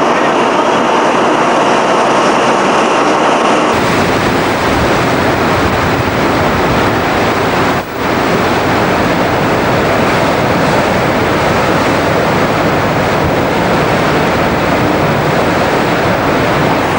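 Warship machinery running steadily below decks for about four seconds. It then gives way to loud wind buffeting the microphone over the rushing, churning water of the frigate's wake and spray breaking over the deck at speed.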